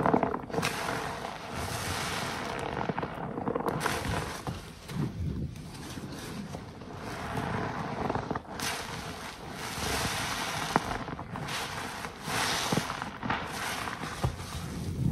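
A green waffle car-wash sponge soaked in Pine-Sol suds, squeezed and kneaded repeatedly in gloved hands: wet squelching of foam and soapy water, coming in several waves.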